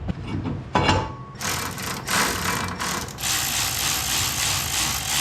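A hand-held workshop tool running with a fast, even mechanical rattle: a few clicks, then short bursts, then one longer run of about two seconds, as the front knuckle and hub assembly of a Chevy 1500 is fastened back on.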